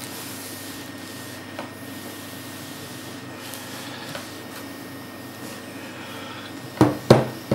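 Plastic and acrylic skimmer parts handled on a tabletop over a steady background hiss, with a few faint clicks, then a quick run of two or three sharp knocks near the end.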